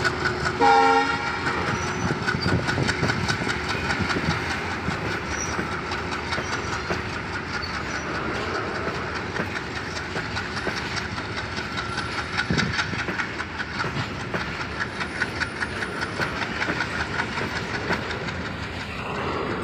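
A locomotive horn gives one short blast about a second in. A freight train's wagons then roll steadily past, their wheels clacking rhythmically over the rail joints.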